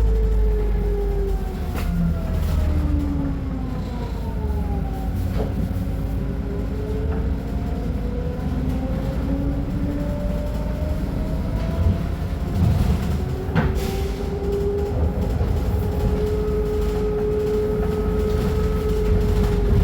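Scania K310UB city bus's diesel engine and driveline running under way: a steady low rumble with a whine that falls in pitch over the first several seconds as the bus slows, then rises again from about twelve seconds in as it picks up speed. A few sharp knocks or rattles come through, about two, five and fourteen seconds in.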